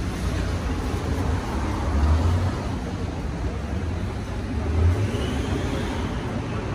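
Steady low background rumble, with two brief louder low surges about two seconds in and near five seconds.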